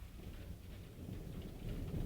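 Thunder rumbling low, swelling over the second half, over faint rain.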